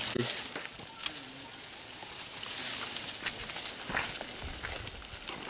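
Rustling and crackling of dry leaf litter, with scattered sharp snaps; the loudest comes about a second in, and another near four seconds.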